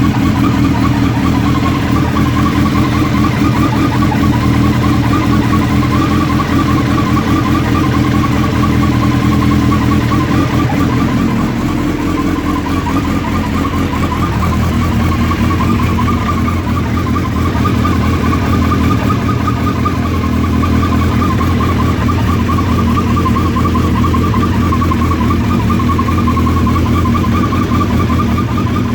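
Suzuki Hayabusa's inline-four engine running steadily, with a whirring noise over its note whose cause the owner has not yet found; the noise is the same whether the engine is cold or warm. The engine note shifts slightly about twelve seconds in.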